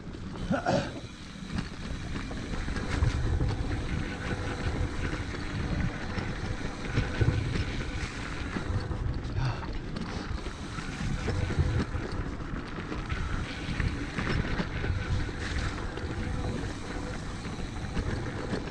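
Wind buffeting the camera microphone as a mountain bike rolls fast down a dirt singletrack, with an uneven rumble and knocks from the tyres and bike over the bumpy trail.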